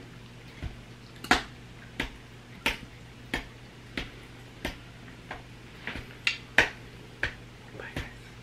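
Sharp clicks or snaps repeated in an even rhythm, about three every two seconds, a dozen or so in all, over a faint steady low hum.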